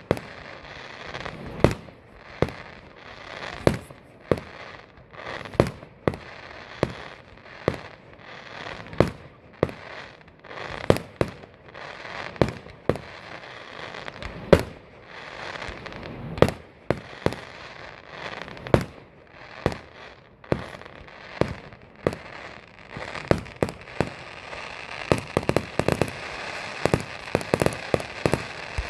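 Aerial fireworks bursting, a steady series of sharp bangs about one to two a second, growing denser near the end with crackling between the bangs.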